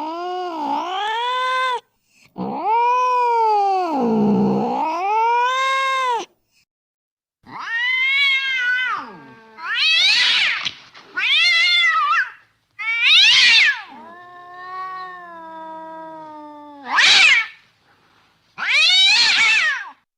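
A cat meowing and yowling over and over, about eight long drawn-out calls that swoop up and down in pitch, the later ones higher and shriller.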